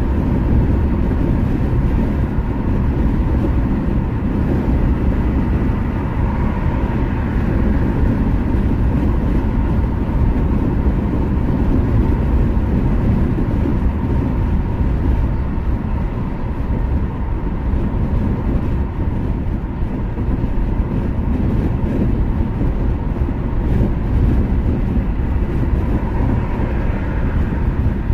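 Steady low rumble of a car driving at highway speed: tyre and engine noise, even and unbroken throughout.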